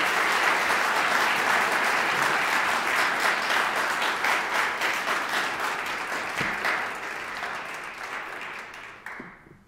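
Audience applauding, steady at first and gradually dying away until it stops just before the end.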